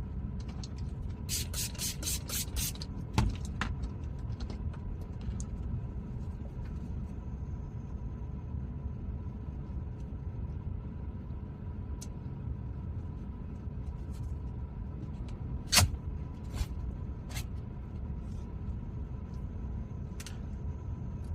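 Steady low rumble with a faint steady hum, broken by scattered sharp clicks and taps: a quick run of about six taps near the start and a louder single click about three-quarters of the way through.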